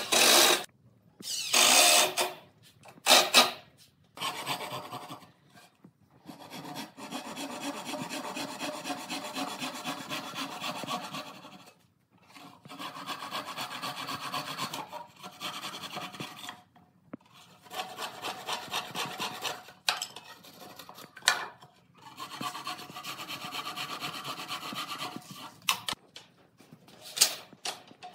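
A cordless drill drives screws into pine slats in three short bursts. After that a hand saw cuts into a pine board in long runs of steady back-and-forth strokes, stopping briefly several times.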